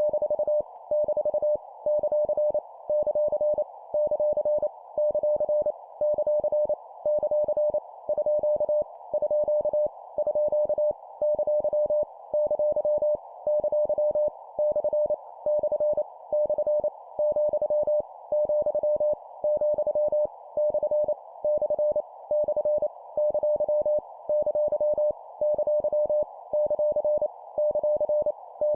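Morse code (CW) sent at 25 words per minute: a single mid-pitched sidetone keyed on and off in rapid dots and dashes, with short pauses between characters, spelling out random punctuation characters. A steady band of hiss sits around the tone throughout.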